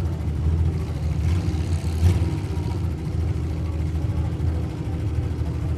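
Demolition derby trucks' engines running with a steady low rumble as the trucks drive slowly into position. There is a brief sharper noise about two seconds in.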